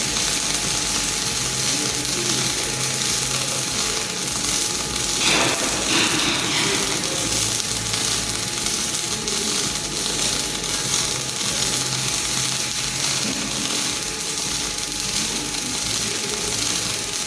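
Robotic MIG/MAG welding arc, a steady hissing crackle, with a brief louder flare about five seconds in.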